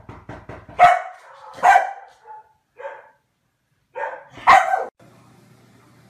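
A dog barking: about five loud barks, irregularly spaced, the last two close together, with a few soft ticks just before the first.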